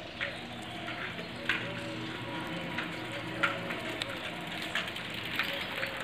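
Puppies suckling from their mother dog: irregular wet smacking and slurping clicks.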